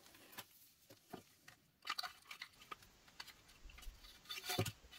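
Faint handling noises: scattered light clicks and rustles as a wiring harness and a rubber display housing are moved about by hand, with a somewhat louder knock about four and a half seconds in.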